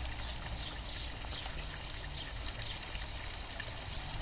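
Steady splashing and trickling of water running into a garden pond, with faint short high-pitched sounds here and there.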